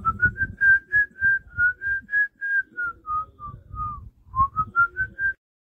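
A person whistling a tune: a run of short notes that climbs, holds, dips and climbs again, with low puffs under the notes. It stops suddenly shortly before the end.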